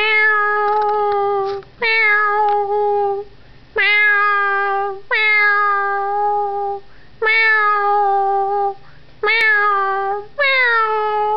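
Young Yorkshire terrier howling in answer to meowing: seven long, drawn-out howls of about a second and a half each, with short breaks between them, each dropping briefly in pitch as it starts and then holding steady.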